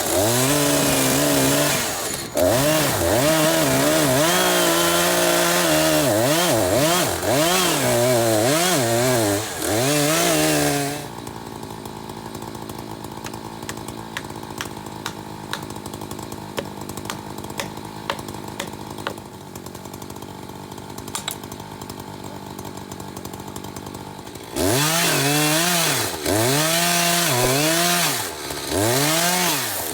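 Gas chainsaw cutting into a large tree trunk to start a felling notch, its engine speed repeatedly dipping under load and climbing back. About 11 seconds in it drops to a steady idle, and about 25 seconds in it revs up and cuts again.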